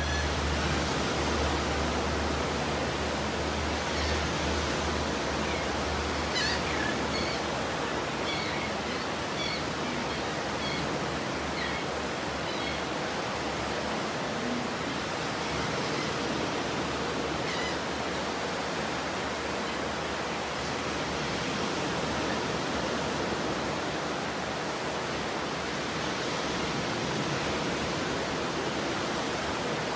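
Ocean surf on a beach: a steady, unbroken wash of breaking waves. A few faint high chirps sound over it in the first half.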